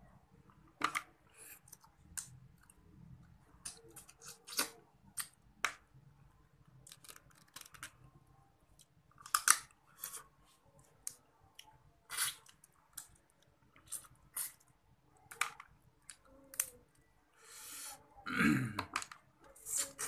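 Crab shell being cracked and pulled apart by hand and eaten, with irregular sharp cracks and chewing. Near the end, a longer sucking sound followed by a brief low vocal sound.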